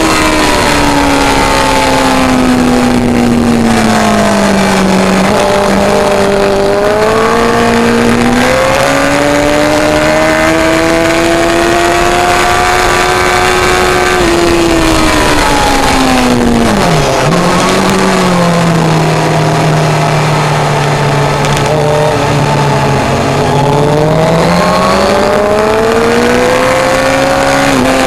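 Suzuki GSX-R1000 K1's inline-four engine, heard from an onboard camera at track speed. The engine note falls over the first few seconds, then climbs steadily to about halfway through. It drops sharply with a brief dip as the bike slows, holds low and steady for several seconds, then rises again under acceleration near the end.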